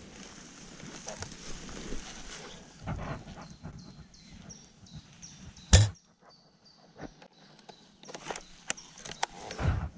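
A single sharp shot from a Cyma CM702 spring bolt-action airsoft sniper rifle a little past the middle, the loudest sound here, amid rustling and handling noise. Short clicks and knocks follow near the end.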